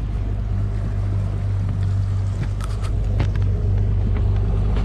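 300 hp outboard motor running steadily at trolling speed, a constant low drone, with a few brief faint ticks about halfway through.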